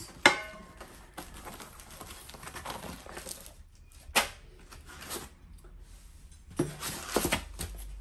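Unpacking noises: a sharp plastic clack just after the start as the plastic mounting bracket is set into its foam insert. Light rustling follows, then another knock about four seconds in, and a burst of rustling and scraping of packaging near the end.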